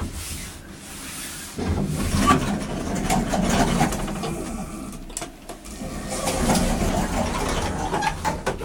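1960s Schindler traction elevator running: the hoist machine drones and the car rattles and clicks as it travels. The sound grows much louder about a second and a half in and dips briefly around the middle.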